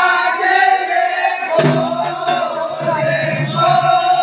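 A group of voices singing a Gajan folk chant with long held notes. Deeper voices join about a second and a half in.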